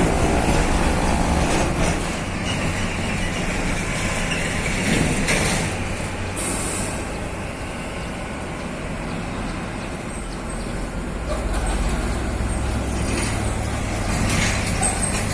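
Heavy Scania truck's diesel engine running at low speed, with a short hiss of air from the air brakes about six seconds in.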